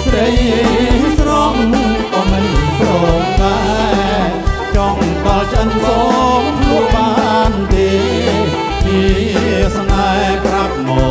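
Live band playing Khmer romvong dance music, with a steady drum beat under a wavering melody line.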